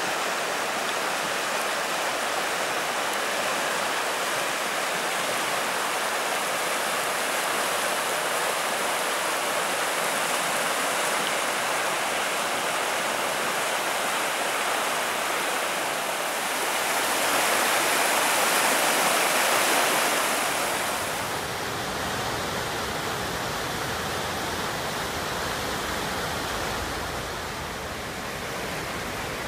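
Swollen river in flood rushing fast through a wooded valley: a steady roar of churning water. It grows louder for a few seconds past the middle, then takes on a deeper rumble.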